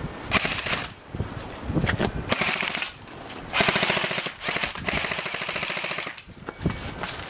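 G&G M5-S5 MP5 electric airsoft gun firing four bursts on full automatic, its metal gearbox cycling rapidly. The first two bursts are short and the last runs about a second.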